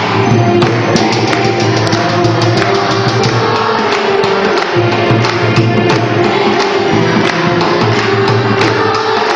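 Devotional group singing with steady rhythmic hand-clapping and percussion beats over sustained held notes.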